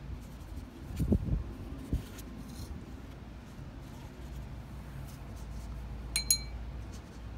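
Two light glassy clinks in quick succession with a short ring, about six seconds in: a paintbrush tapped against a glass of painting water. A low rumble and a soft knock of handling come in the first two seconds.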